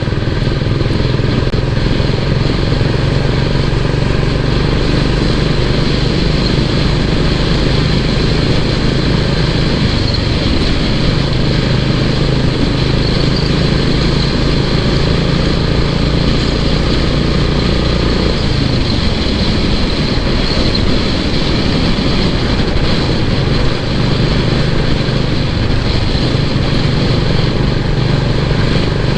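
Royal Enfield Classic 350's single-cylinder engine thumping on the move, its low exhaust note steady for long stretches and shifting in pitch a few times, under a steady rush of wind and road noise.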